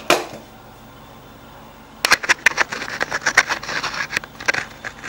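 Handling noise: a single knock, then from about two seconds in a quick, irregular run of clicks and taps, as of something being fumbled or knocked about close to the microphone.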